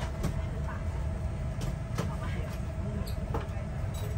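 Steady low rumble in the cabin of a Boeing 787-9 airliner on the ground before takeoff, with a faint steady hum and scattered light clicks and knocks.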